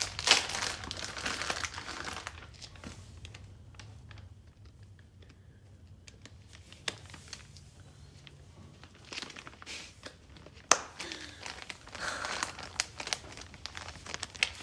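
Plastic soft-bait packages crinkling as they are handled, in two spells: for about the first two seconds and again over the last five or so, with a quieter stretch between. A few sharp clicks stand out in between.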